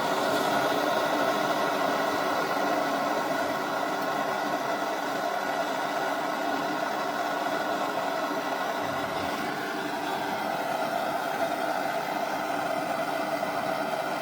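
Handheld soldering torch flame burning steadily, a constant rushing noise, while a copper pipe joint is reheated to touch up its solder.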